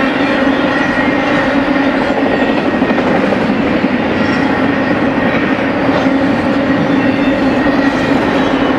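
Cars of an intermodal freight train rolling steadily past: continuous running noise of steel wheels on the rail with a constant low hum.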